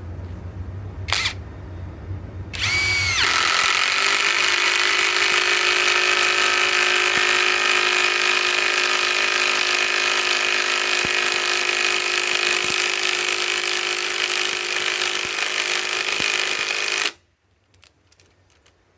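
Cordless impact driver, running on a 24-volt Flex battery through an adapter, driving a 5-inch ledger lock structural screw into timber. After a short blip about a second in, it spins up and hammers steadily for about fourteen seconds, then stops abruptly.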